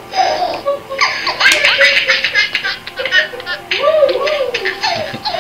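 A baby laughing in repeated bursts.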